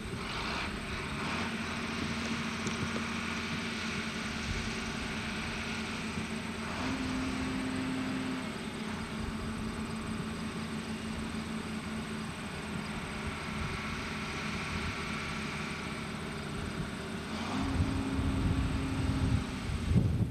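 Diesel engines of harvest machinery running steadily, with the engine note stepping up briefly about seven seconds in and again near the end, where a rougher low rumble grows louder.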